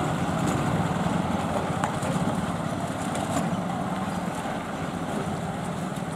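Road traffic crossing the rails at low speed: a pickup truck and motorcycles running past with a steady low engine rumble that eases off slightly toward the end.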